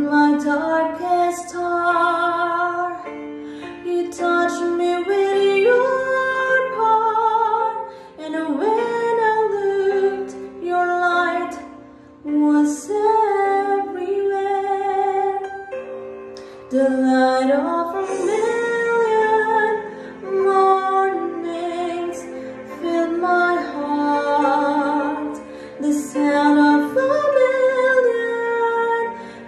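A woman singing a slow song, her voice gliding between long held notes in phrases with short breaks between them.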